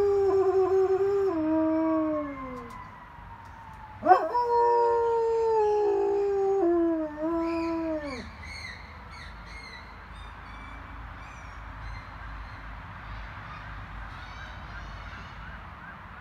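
German Shepherd howling: one long howl that slides down in pitch and trails off, then after a short pause a second howl that starts with a sharp upward yelp, holds, and slides down before dying away about halfway through.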